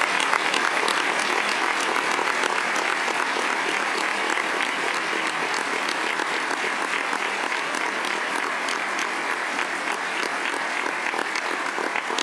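Large crowd applauding, dense and steady, a standing ovation that eases slightly toward the end.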